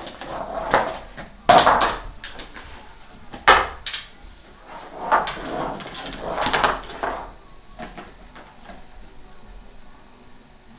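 A series of sudden knocks and scrapes, about five main bumps in the first seven seconds and quieter after that, as toys are knocked about in play.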